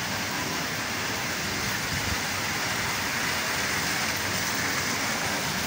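Water from a fountain pouring and splashing into its pool: a steady, even hiss.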